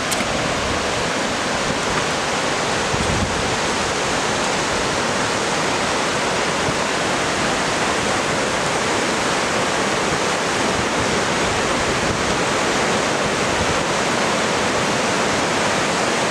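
Rushing whitewater of the Carbon River, a glacier-fed meltwater river, makes a loud, steady roar with no letup.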